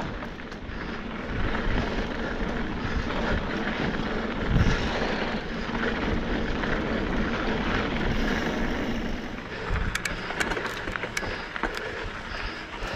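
Mountain bike riding over a frozen sandy dirt trail: a steady rumble of tyres and wind on the bike-mounted camera, with a few sharp clicks and rattles about ten seconds in.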